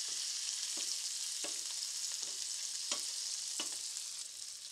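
Vegetables frying in a pan of oil and butter, a steady sizzle as they brown to a crust. Faint clicks come about every 0.7 s over the sizzle.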